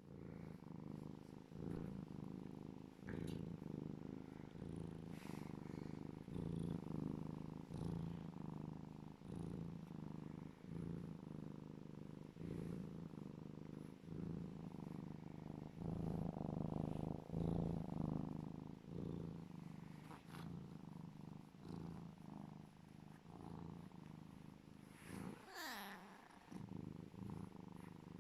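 African serval purring loudly: a low, rhythmic rumble that swells and eases with each breath in and out. A brief sound with a falling pitch comes once near the end.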